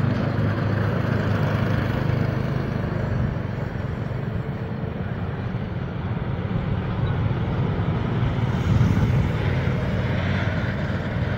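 Small engines of several youth mini cage karts running together on a dirt oval, a steady engine drone that eases off slightly midway and builds again as the karts come back around.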